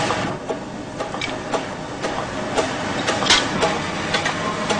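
Elliott 618 toolroom surface grinder running with a steady mechanical noise, with scattered sharp clicks as steel balls are moved about on its magnetic chuck.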